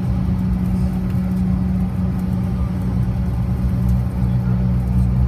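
Steady cabin drone of a CRJ-700 regional jet taxiing, its rear-mounted GE CF34 turbofans running at low thrust, heard from inside the cabin as a low hum with an even rushing noise above it.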